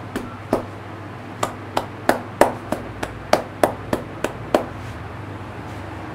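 Hands striking a head in Indian head-massage chopping and tapping: about a dozen sharp slaps in quick, uneven succession over some four seconds.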